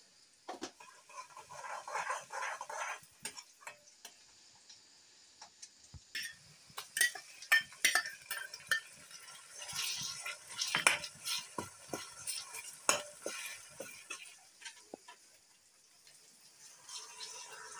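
Masala frying in a metal kadai: a spoon stirring, scraping and clinking against the pan, with sizzling that thickens about six seconds in as more ingredients go into the hot oil.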